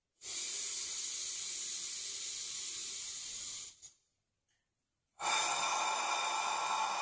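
A man's slow, deep breathing: one long breath lasting about three and a half seconds, a short pause, then a second long breath starting about five seconds in.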